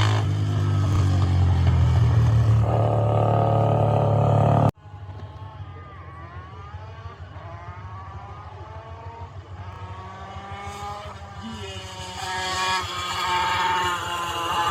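Hill-climb racing engines at full throttle. First a loud, close engine, which cuts off abruptly just under five seconds in. Then a more distant engine climbs in pitch and drops back several times as it shifts up through the gears, getting louder near the end.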